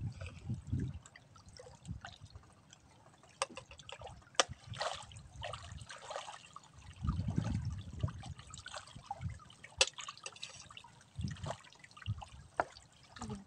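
Water lapping and dripping against the floating fish cage's frame in small uneven washes, with a few sharp clicks.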